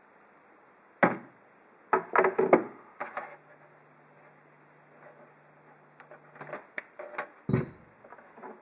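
Handling clicks and knocks as a small plastic Bluetooth audio receiver is plugged onto a 3.5 mm jack and set down on a hi-fi stack. A low steady hum is heard for about three seconds in the middle, after the plug goes in.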